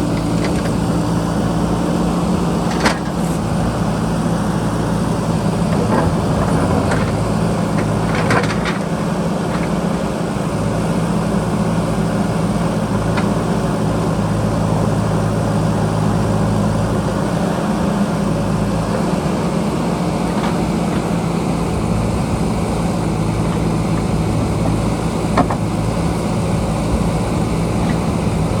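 JCB backhoe loader's diesel engine running steadily at work, with a few sharp knocks.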